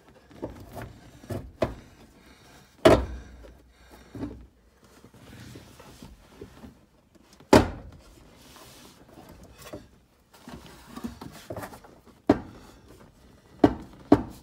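Knocks and clunks of a '65-68 Mustang heater box assembly being shifted and seated against the firewall under the dash, with hands rustling on the parts. Two loud thumps come about three and seven and a half seconds in, and several smaller sharp knocks near the end.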